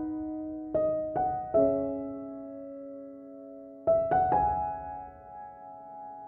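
Background piano music: a few notes and chords struck at a time, each left to ring and fade before the next.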